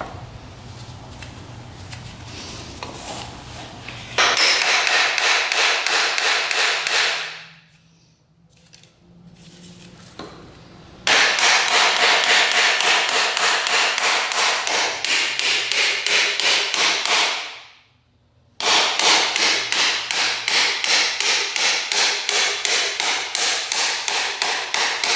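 Metal being hammered in steady, rapid blows, about three a second, in three runs starting about 4, 11 and 18 seconds in, while working on a dirt bike's front wheel.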